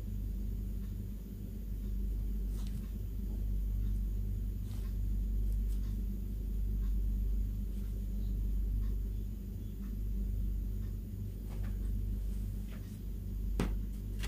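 A steady low hum with a few faint clicks and taps over it, and one sharper click near the end.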